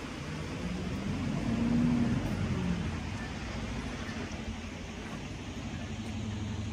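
A motor vehicle's engine passing unseen: a low hum that swells to its loudest about two seconds in, then eases back to a steady low rumble.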